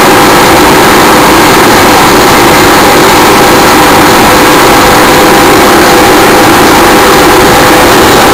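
Tow boat's engine running steadily at speed while pulling a slalom water skier, loud and unchanging, with a few steady tones over a dense roar.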